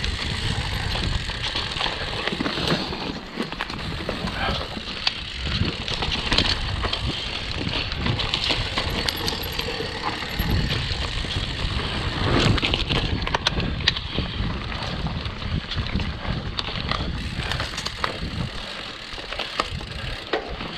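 Mountain bike riding fast down dirt singletrack: knobby tyres crunching over dry pine needles, leaves and twigs, with frequent sharp clicks and knocks from the bike over bumps and roots.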